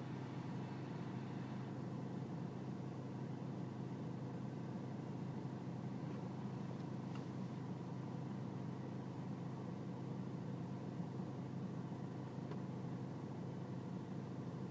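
BMW E46 320Cd's four-cylinder diesel engine idling steadily, the rough idle the owner is chasing.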